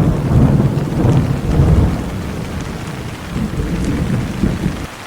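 A rumble of thunder over steady rain, swelling and easing several times for about five seconds and cutting off abruptly near the end, leaving the rain hiss.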